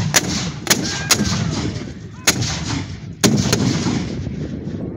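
A line of Civil War muzzle-loading field cannons firing blank powder charges in turn: about five sharp booms within a few seconds, each trailing off in a low rumble.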